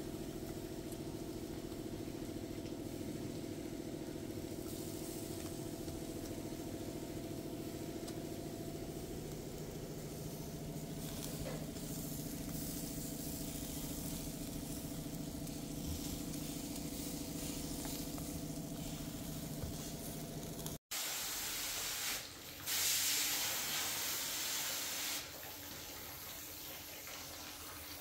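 Fish sizzling in a wire grill basket over wood embers, with a steady low hum underneath. After a sudden break about 21 seconds in, loud bursts of spraying hiss start and stop, each from about a second to a few seconds long.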